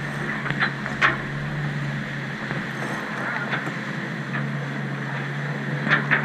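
Steady rush of wind and water aboard a sailboat under sail, with a few sharp clicks or knocks, one about a second in and a pair near the end.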